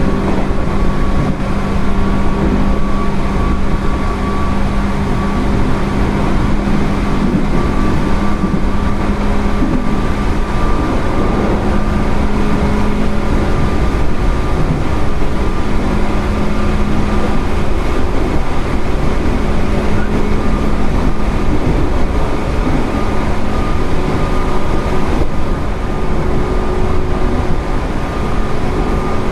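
JR 205 series 0 electric train with field-added excitation control, running at a steady speed: a loud, even rumble of wheels on rail with a steady hum and whine that holds its pitch.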